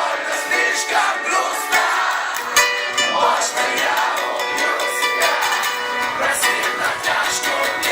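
Live rock band music heard from the audience, dense and continuous, with thin, nearly bass-less sound and crowd noise mixed in.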